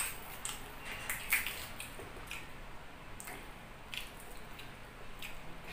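A person eating with bare hands, close to the microphone: wet chewing and smacking with irregular sharp clicks, and fingers squishing through saucy chicken liver adobo.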